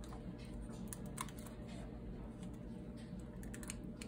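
Light, irregular plastic clicks and taps as hands work the plastic body of a 1/32 slot-car race truck loose from its chassis, with a quick run of clicks near the end.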